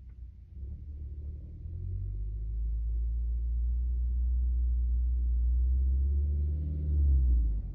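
Low, steady drone of a car engine running, building over the first couple of seconds and cutting off suddenly near the end.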